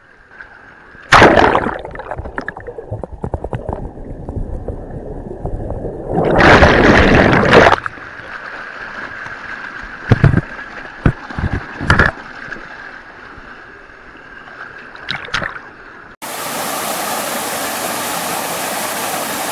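River water splashing and sloshing close to the microphone, with loud splashes about a second in and a longer burst of splashing around a third of the way through. Near the end it cuts suddenly to the steady rush of a stream flowing over rocks.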